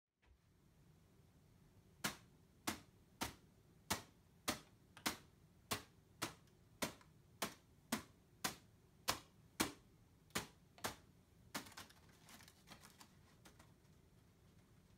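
A kamifusen paper balloon is batted upward off an open palm, giving a sharp papery smack at each hit. The hits come evenly, about one every 0.6 s, for some seventeen strikes starting about two seconds in. Near the end the hits stop and the paper gives a soft crinkling as the balloon is handled.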